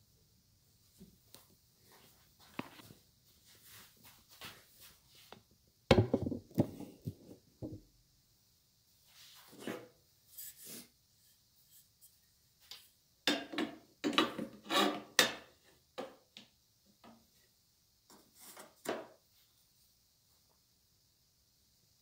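Metal parts of an SK11 SWB-300W band saw being handled and fitted by hand: irregular clacks, knocks and rattles from the aluminium rip fence and table fittings. The sounds are loudest about six seconds in and again in a cluster around thirteen to fifteen seconds in. The saw's motor is not running.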